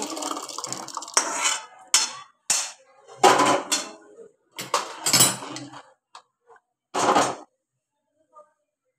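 A steel spoon scraping and clinking against aluminium cookware as thick ragda is scraped out of a pan into a pressure cooker pot: a string of separate scrapes and knocks, the last about seven seconds in.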